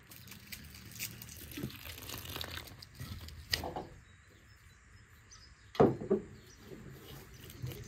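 Liquid poured from a jug into an enamel bowl of flour, splashing as a hand mixes it in to start a dough. A couple of sharp knocks about six seconds in are the loudest sounds.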